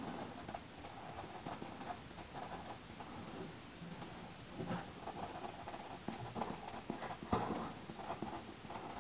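Pen writing on paper: faint scratching of short, quick handwriting strokes.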